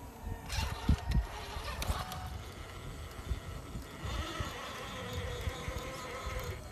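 Small electric motors of RC rock crawlers whining as the crawlers creep over granite boulders, with irregular low wind thumps on the microphone.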